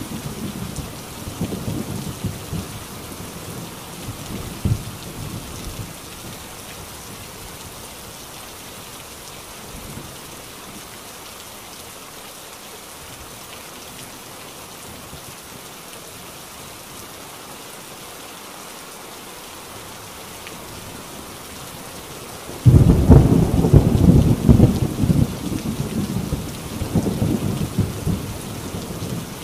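Heavy rain falling on a corrugated tin roof in a steady hiss, with a thunder rumble dying away in the first few seconds. About two-thirds of the way through a sudden loud clap of thunder breaks and rumbles on for several seconds.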